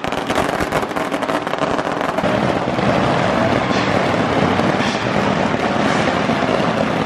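A long string of firecrackers going off: a dense, continuous crackle of rapid small bangs.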